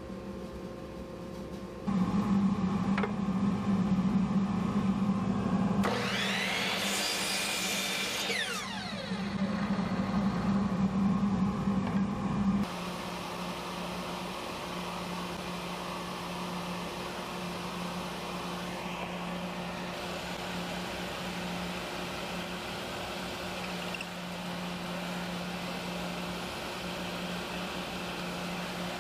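Jointer running with a strong steady hum from about two seconds in, with a whine that rises and then falls between about six and nine seconds in. It cuts off suddenly about halfway through, leaving a quieter, steady machine hum with a hiss.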